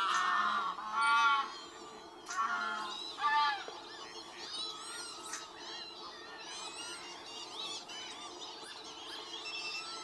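A flock of geese honking, many calls overlapping. The loudest calls come in the first few seconds, then fainter honks keep on in a steady chorus.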